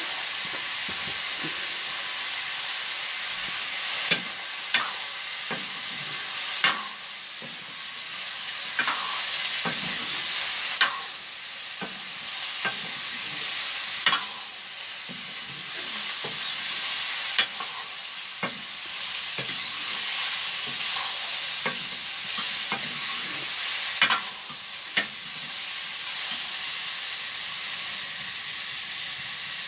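Vegetables sizzling as they fry in a wok, with a metal spoon stirring and scraping in the pan and a dozen or so sharp clinks of the spoon against the metal.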